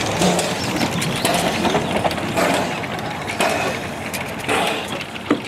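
Rough, uneven rumble and clatter of a narrow-gauge steam train on the move, heard at an open carriage window, with scattered sharp clicks.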